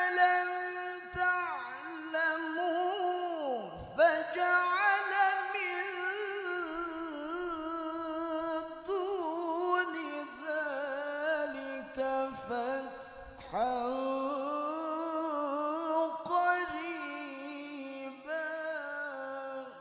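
A man reciting the Quran in the melodic mujawwad style in a high voice, drawing out long ornamented phrases with a wavering pitch and brief pauses for breath. The recitation is heard through a microphone and loudspeaker and stops near the end.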